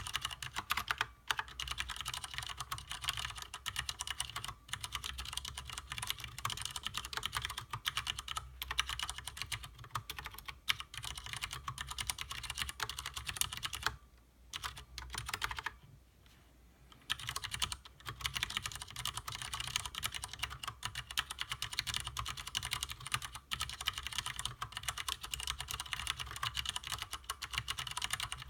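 Continuous fast typing on a stock Leopold FC750R mechanical keyboard with Cherry MX Clear tactile, non-clicky switches: dense, rapid keystrokes, broken by two short pauses about halfway through.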